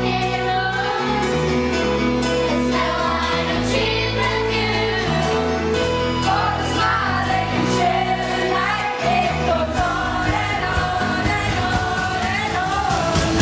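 A group of young girls singing together over an instrumental accompaniment of held chords.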